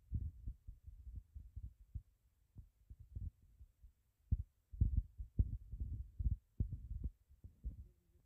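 Fingertips tapping a smartphone's touchscreen keyboard while typing: a run of irregular, dull low thuds, several a second, easing off for a moment about halfway through.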